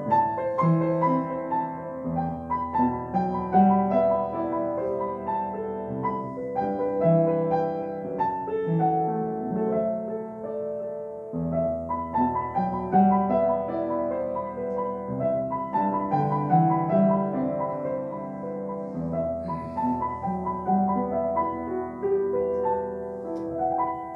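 Solo piano playing a Christmas carol arrangement in held notes and chords, with a brief pause between phrases about halfway through.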